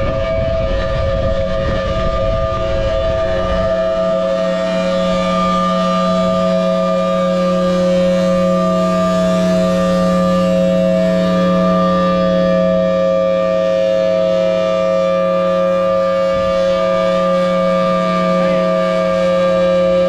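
Federal Signal Thunderbolt outdoor warning siren sounding a loud, steady tone that holds at one pitch without winding up or down, swelling slightly a few seconds in.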